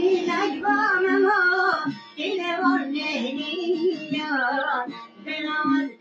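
Kurdish song: a voice singing a wavering melody over backing music, the phrases breaking off briefly about two seconds in and again near the end.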